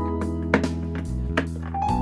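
Instrumental background music: held melody notes over a steady bass line, with a couple of sharp beats.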